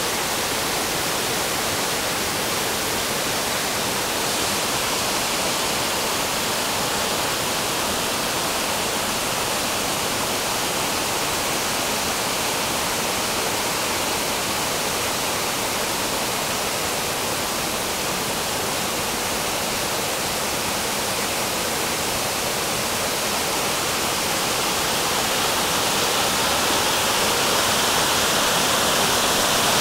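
Large waterfall in heavy flow, swollen by rain: a steady rushing of falling water that grows a little louder near the end.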